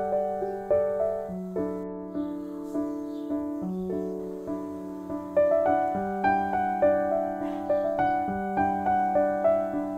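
Background music: a gentle piano melody, notes struck and fading in a steady, unhurried rhythm.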